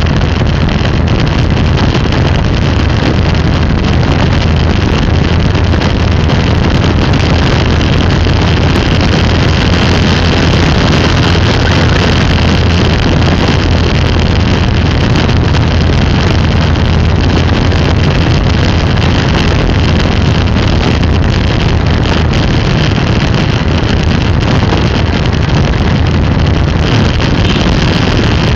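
Steady wind rush on the microphone of an action camera moving through traffic, over a steady low vehicle drone.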